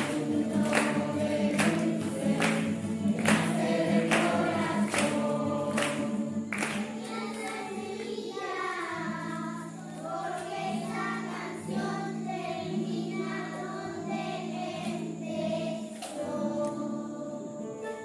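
A group of children singing together with guitar accompaniment. For the first seven seconds there is a sharp, even beat a little more than once a second; after that the voices go on in longer held notes.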